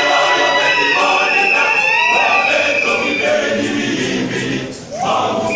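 Choir singing together, the sound dropping briefly for a breath near the end before the voices come back in.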